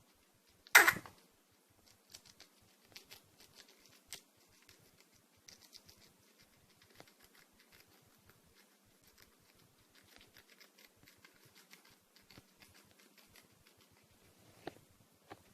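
A guinea pig gives one sharp, short cough about a second in, followed by faint scattered scratching and clicking, with a smaller burst near the end.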